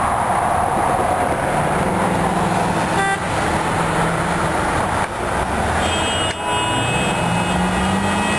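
Steady, loud road-traffic noise with a low engine drone underneath.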